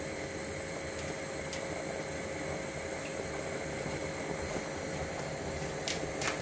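Spiced tomato water with rice coming to the boil in a pan over a gas flame turned up high: steady bubbling, with a couple of faint ticks near the end.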